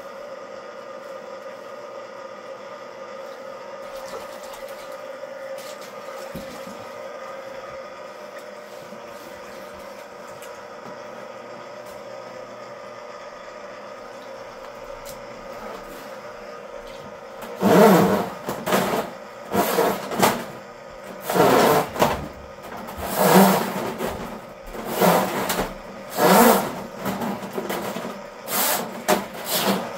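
Ridgid K-50 sectional drain machine running steadily. About 17 seconds in, loud bursts of clatter begin, roughly one every second or two, as the spinning cable slaps and splashes in the standing flood water.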